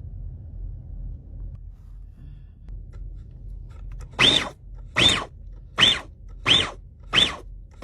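A food processor is pulsed six times in quick succession. Each pulse is a short motor whine that rises and falls in pitch as the blade spins up and stops, grinding chicken thigh with seasoning into patty mix.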